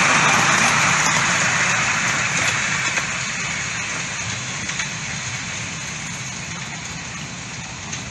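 Miniature railway train with its open passenger coaches running along the track and away, a steady rattling noise of wheels on rails that fades as it recedes, with a few brief clicks.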